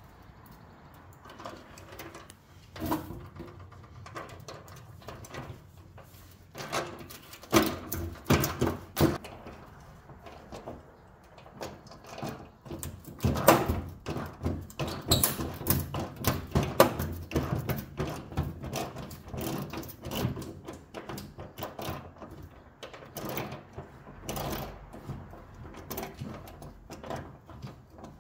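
Hand ratchet clicking in short runs, with scattered clicks and knocks, as a socket turns out the bolts holding the front fender.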